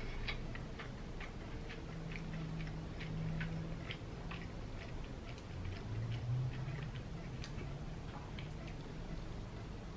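Close-up chewing of a mouthful of burger: small wet mouth clicks, irregular, several a second.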